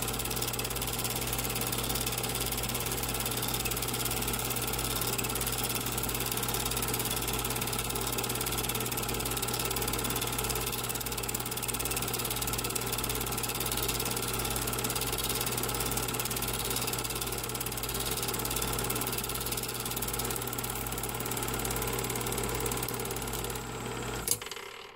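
Home-movie film projector running with a steady whirring mechanical hum. It stops with a sharp click just before the end and winds down to quiet.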